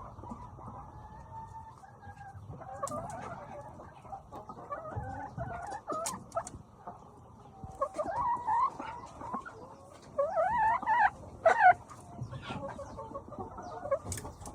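Domestic chickens clucking and calling on and off, with a louder run of calls about ten to twelve seconds in.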